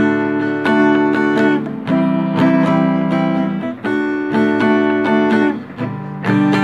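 Background music: guitar chords strummed in a steady pattern, the chord sounding out and being struck again every second or so.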